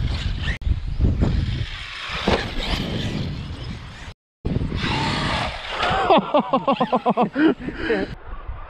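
Electric motor of a large RC basher truck running on grass with a rushing, rumbling noise. About six seconds in comes a quick run of short rising-and-falling motor whines, several a second, as the throttle is blipped over and over.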